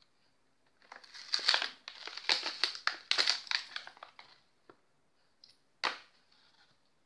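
Clear plastic blister packaging crinkling and crackling for about three seconds as it is squeezed and pushed to free a knife sharpener. A single sharp click follows a little before the end.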